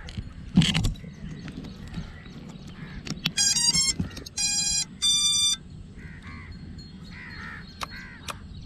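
An FPV racing quad's ESCs playing their power-up tones through the motors: a quick stepping run of notes, then two long steady beeps. A single knock comes about half a second in.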